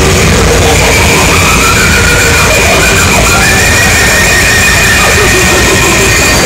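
Harsh noise from a DIY oscillator with add-on capacitors, run through Line 6 DL4 and Giga Delay pedals: a loud, dense wall of noise with a steady high whistle and tones that slide up and down.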